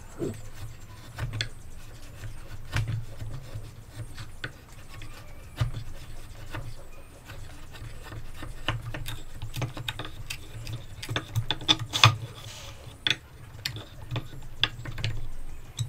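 Wood chisel pushed by hand, paring wood out of a joint in a timber beam: irregular crisp clicks and small cracks as the fibres are cut, one louder crack about twelve seconds in, over a low steady hum.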